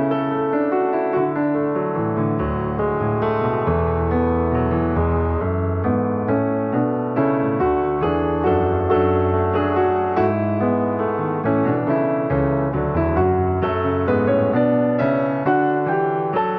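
Background piano music: a gentle, steady piano piece with sustained chords and a moving melody.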